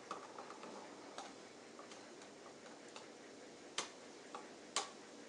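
Faint ticks and clicks of a screwdriver checking that the terminal screws on a 120-volt outlet are snug, with two sharper clicks about a second apart near the end.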